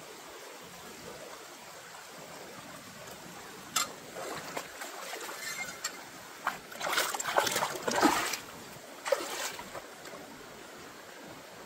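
Shallow rocky stream flowing steadily, with feet splashing through the water as a person wades, a run of loud splashy steps over a few seconds about halfway through.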